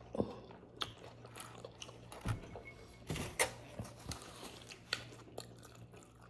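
A person chewing and biting food close to the microphone, with irregular wet smacks and clicks of the mouth.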